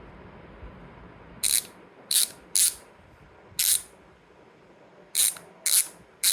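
Rujixu Pro mountain-bike hub with a six-pawl, 120-engagement freehub buzzing in short bursts of rapid pawl clicks, seven brief loud buzzes at uneven gaps.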